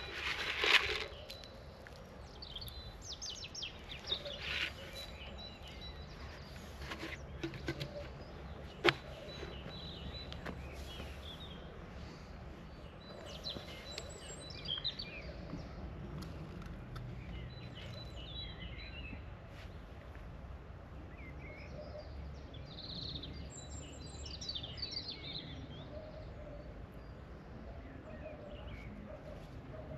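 Small birds chirping on and off over a steady low outdoor rumble, with light scraping and clicks of hand-trowel work in dry soil. Near the start a short rattling burst as fertilizer pellets are shaken from a plastic bucket, and one sharp click about nine seconds in.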